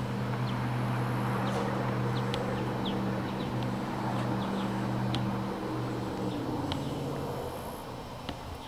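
A steady engine hum that drops in pitch and fades away about six and a half seconds in. Short high chirps sound over it now and then.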